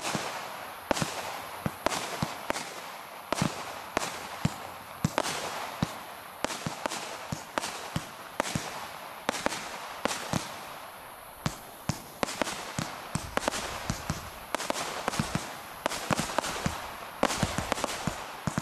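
Shogun "100s Colourful Glitter" 100-shot firework cake firing in quick succession: sharp shots, about two or three a second, over a steady hiss from the glitter stars.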